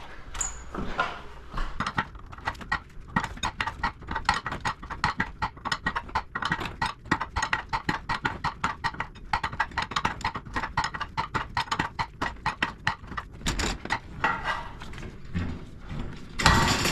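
Rapid, regular mechanical clicking, about five clicks a second for roughly twelve seconds, from work on a garage door torsion spring being back-wound, followed by a couple of louder knocks near the end.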